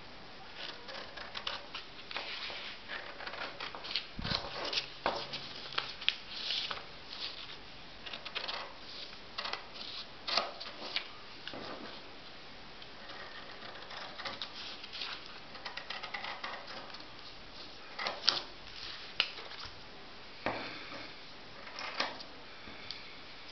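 Scissors snipping through thin paper in a long run of short, irregular cuts, with a few sharper snips in the second half.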